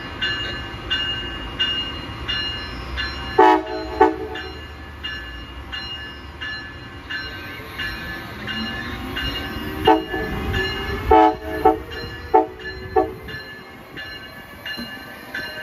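Amtrak Siemens ACS-64 electric locomotive and train approaching over a steady rumble, with a bell striking a little more than once a second. The locomotive horn gives two short blasts about three seconds in, then a quick string of short toots from about ten seconds in, a playful horn show.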